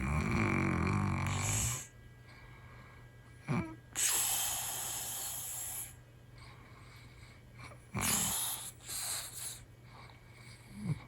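A man snoring in slow breaths. A low rattling snore lasts about two seconds. After a short catch comes a long airy hiss, a strange sound like air leaking. Another round of short snorting breaths follows about eight seconds in.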